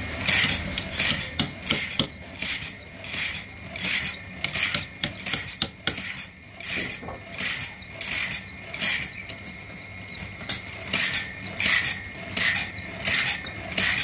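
1938 vertical frame sawmill running, its reciprocating blade and feed mechanism making a steady rhythm of rasping, clattering strokes, about one and a half a second.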